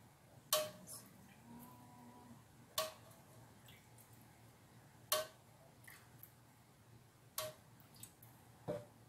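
Faint, sharp metallic clinks of kitchen metalware, five of them about two seconds apart, as metal tongs, an aluminium pot and a metal tray knock together.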